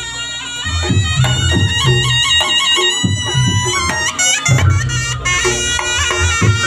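Reog gamelan music: a slompret shawm playing a nasal, wavering melody over drums and gong-like low strokes.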